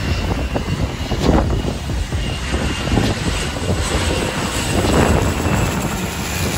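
Small propeller aircraft's engine running steadily, heard over heavy wind noise on the microphone.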